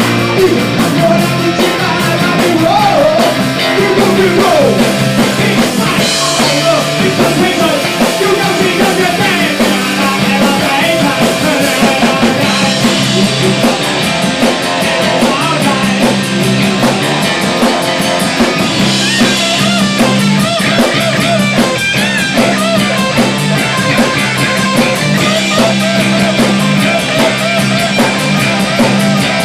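Punk rock song playing loud and steady, with guitar, drum kit and a singing voice.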